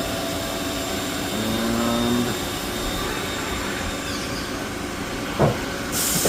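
CNC machining center running a cutting program: a steady mechanical whir with thin steady tones and a brief pitched whine about a second and a half in. A short knock about five seconds in is the loudest moment, and a burst of hiss comes near the end.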